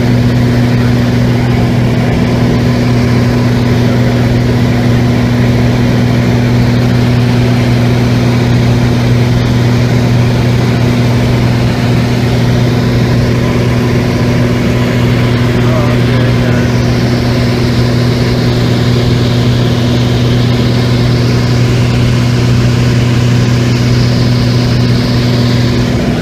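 Piston engine and propeller of a small high-wing plane in level flight, a loud, steady drone with an even low hum, heard from inside the cabin.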